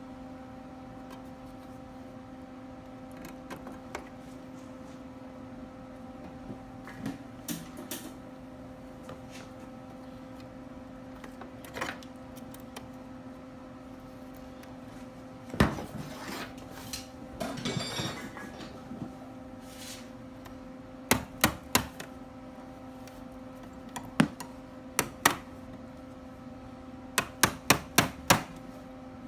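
Sharp metallic knocks and taps on metal, coming singly and in quick groups of three to five near the end, over a steady hum. A short crackling, noisy stretch comes about halfway through.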